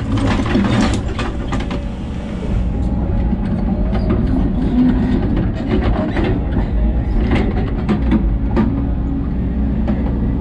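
Hidromek HMK 140 14-ton excavator's diesel engine running steadily, heard from inside the cab, with scattered short knocks and clatters as it works.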